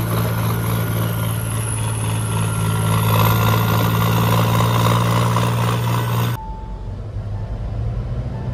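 Tractor diesel engine running steadily, with a strong low hum. About six seconds in it cuts off abruptly to a quieter low rumble with a faint, on-and-off high tone.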